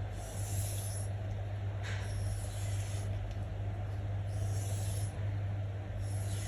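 Sugimoto kitchen knife blade scraping along a whetstone in slow sharpening strokes, each a hissy swish of about a second, roughly every two seconds, over a steady low hum.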